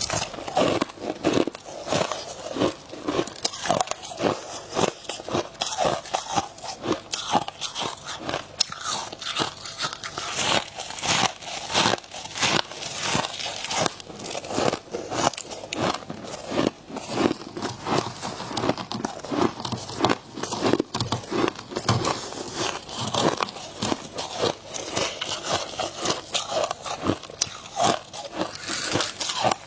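Close-up biting and chewing of soft freezer frost: a dense, uneven run of crisp crunches, several a second.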